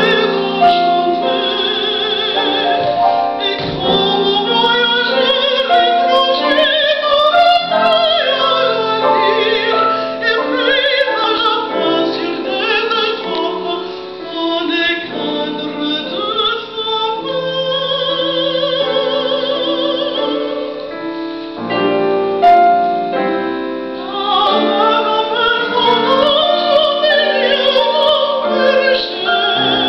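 Female opera singer singing a classical song with strong vibrato, accompanied by grand piano.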